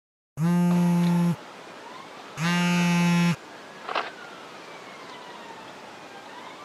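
A low, harsh electronic buzz tone sounds steadily for about a second, twice, about a second apart. It is followed by a faint background hiss with a thin tone gliding slowly down and back up, and a short chirp about four seconds in.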